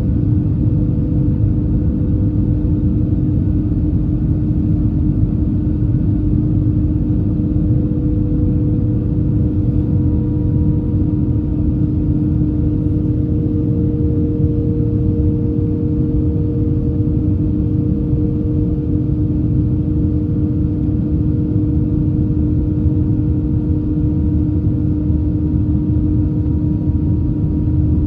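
Airbus A321 cabin noise: a steady, loud rumble of jet engines and airflow, with a constant hum and a fainter second tone that drifts slightly in pitch partway through.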